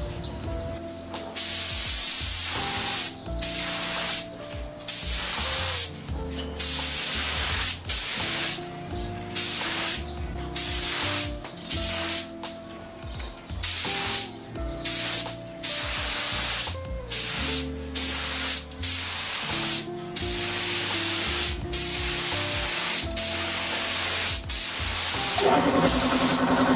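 Gravity-feed compressed-air spray gun hissing as it sprays primer in many short passes, each a second or so, the air cutting on and off with the trigger. Background music plays underneath.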